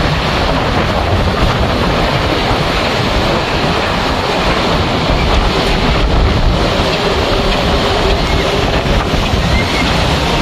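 Strong onshore wind buffeting the microphone in a steady low rumble, over the surf of wind-driven Lake Erie waves breaking on the beach.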